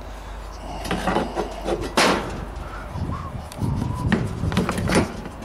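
Steel angle iron being handled and pushed into place against a hard plastic container: a series of knocks and clicks with scraping and rubbing between them. The loudest knock comes about two seconds in.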